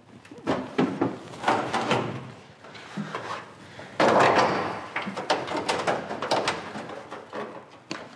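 Clanks, knocks and scraping of metal being bent by hand, with a loud clatter about four seconds in.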